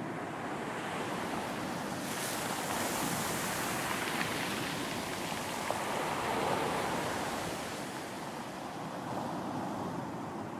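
Sea waves breaking on a beach: a hiss of surf swells about two seconds in, is loudest a little past the middle, then washes back, with a smaller swell near the end.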